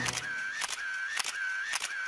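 A small metal spoon clicking and scraping against miniature stainless-steel bowls, sharp clicks every fraction of a second, each with a brief metallic ring.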